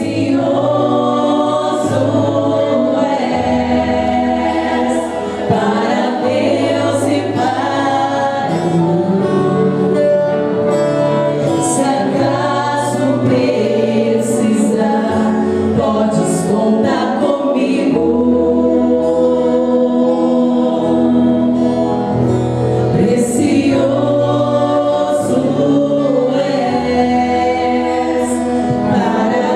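A vocal group singing choir-style with accompaniment, over low bass notes held for a few seconds at a time.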